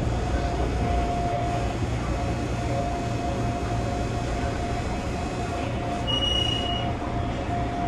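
Gakunan Railway electric train running, heard from inside the carriage: a steady low rumble with a mid-pitched hum, and a brief high-pitched tone about six seconds in.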